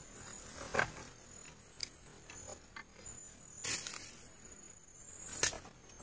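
Night insects trilling steadily at a high pitch, with scattered small rustles and clicks, a short burst of noise about three and a half seconds in, and one sharp click about five and a half seconds in.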